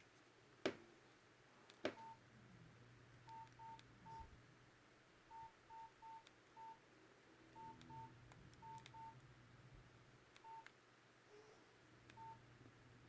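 Nokia 6301 keypad tones: about fourteen short beeps, all at one pitch and unevenly spaced, as its keys are pressed one by one. Two sharp clicks come within the first two seconds.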